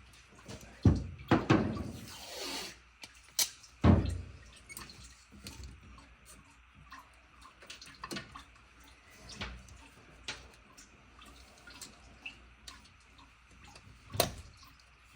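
Irregular clicks and knocks of hand tools and metal parts being handled during work on the engine's carburetor and throttle linkage. A few louder knocks come in the first four seconds, another comes near the end, and softer ticks fall in between.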